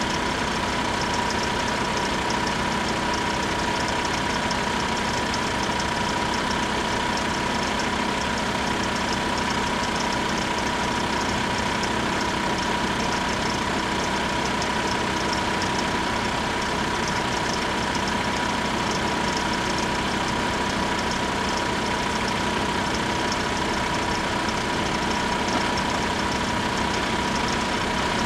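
Railway level crossing warning bells ringing without a break, one steady high ring over a fast, even rattle. They warn that the crossing is closed for an approaching train.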